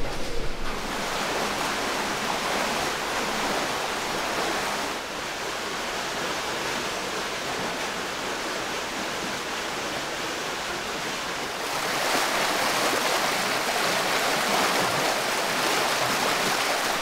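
Water welling up and splashing in an artificial rock-basin spring, a steady rush of running water that grows louder about twelve seconds in.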